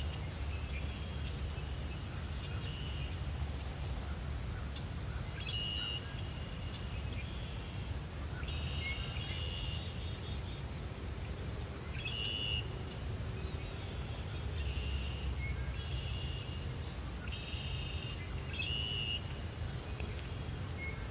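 Birds calling and singing around a flooded spring wetland: short high phrases repeated every second or two, over a steady low rumble.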